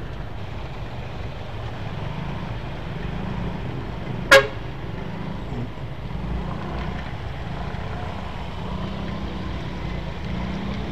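Honda Vario 125 scooter's single-cylinder engine running at low speed in slow traffic, under a steady hiss of rain and wet tyres. A single very short horn toot comes about four seconds in.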